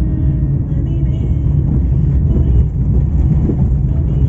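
Steady low rumble of a vehicle driving along a street, its engine and road noise heard from on board.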